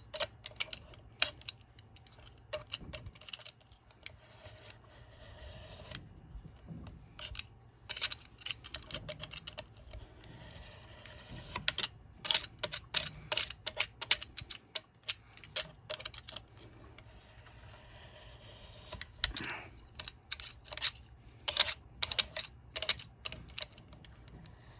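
Irregular clusters of light, sharp clicks and rattles, some seconds apart, over a faint steady low hum.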